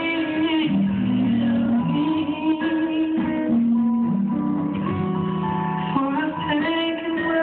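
Recorded gospel music playing with sustained sung and instrumental notes that move in steps, sounding muffled with no treble.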